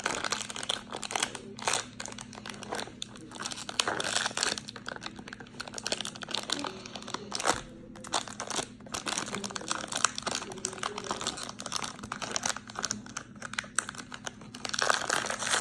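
Small plastic packet crinkling and rustling in the hands as it is worked at to tear it open, in dense, irregular crackles with a couple of brief pauses.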